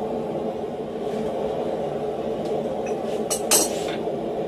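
Steady hum of the forge shop, with a few sharp metal clinks about three seconds in as the red-hot steel hammer blank and the tongs are set down on the steel swage block.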